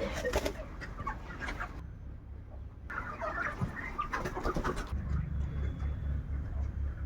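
Flock of chickens clucking and calling, in two busy bursts, over a low pulsing machine hum that comes up in the second half.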